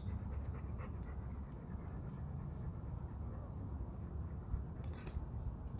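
Steady low outdoor rumble, with a faint click or two about five seconds in as a muzzle-loading rifle-musket is loaded by hand.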